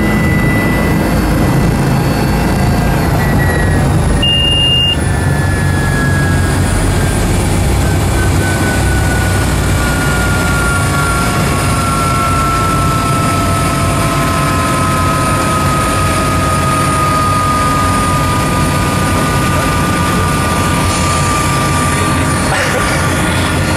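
Helicopter turbine engine and rotor running steadily, heard from inside the cabin, with a turbine whine that slowly falls in pitch. A short high beep sounds about four seconds in.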